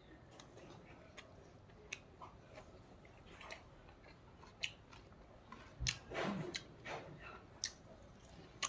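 Close-up chewing and wet mouth clicks of a person eating rice and leafy greens by hand, with scattered faint clicks and a louder stretch of chewing about six seconds in.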